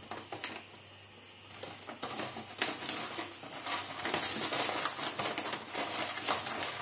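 Salt being scooped with a spoon: after a quiet second and a half, a dense patter of small clicks and crackles, with one sharper click a second later.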